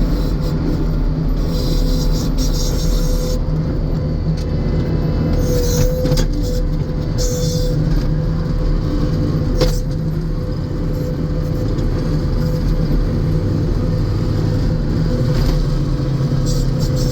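New Holland C245 compact track loader's diesel engine running steadily, with a steady whine over the rumble. There is a single sharp click about ten seconds in.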